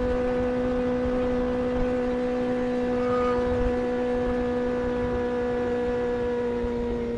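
Kawasaki Ninja sport bike engine running at steady cruising revs under the rider, a smooth even hum with rushing wind and road noise, the pitch easing slightly near the end.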